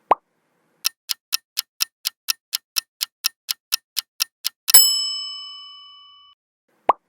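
Quiz countdown-timer sound effect: a short swish, then clock ticks about four a second for nearly four seconds, ending in a bright bell ding that rings out. Another short swish comes near the end.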